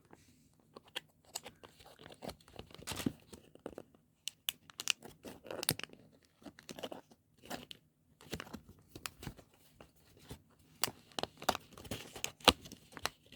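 A taped cardboard box being handled and opened by hand: scattered crunches, rustles and taps, with a sharper snap near the end.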